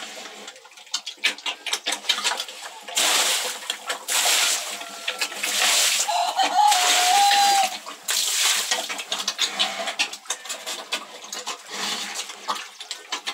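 Pigs eating wet feed at a trough: steady wet chewing and slurping, with louder splashing bursts in the middle and one short high cry.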